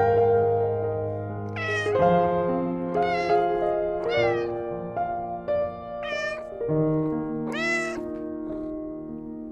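A cat meowing about five times in short separate calls, over background music of steady held notes.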